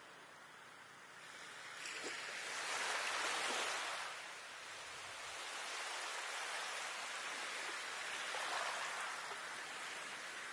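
Soft rushing water noise, with no tune, swelling and easing twice.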